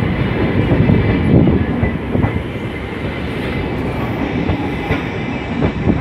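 Toshiba electric multiple unit pulling out of the station, its cars rolling past with steady wheel-on-rail noise and a couple of sharp knocks.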